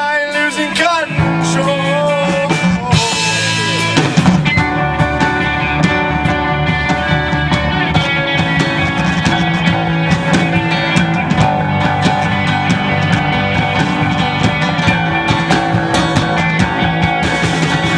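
Live rock band with guitar, bass and drums playing. A sung line trails off about a second in, and a cymbal swell leads into the full band with drums about four seconds in.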